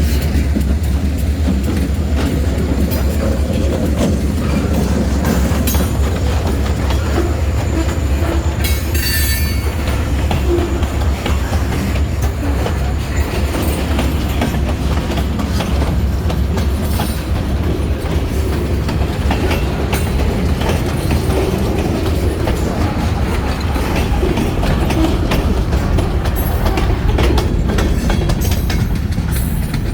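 Freight train rolling past with a steady low rumble and wheels clicking over the rail joints. A brief wheel squeal comes about nine seconds in.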